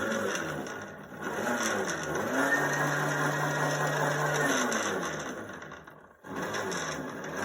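Tuttio Soleil01 electric dirt bike's motor whining under throttle in eco mode. The pitch rises and falls in waves and holds steady for a couple of seconds in the middle. It dies away about six seconds in, then spins up again near the end.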